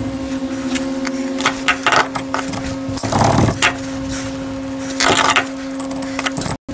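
Irregular sharp metal clicks and two longer scraping bursts from a ratchet and stud extractor working exhaust manifold studs out of an Austin A-Series cylinder head, over a steady hum. The sound cuts out briefly near the end.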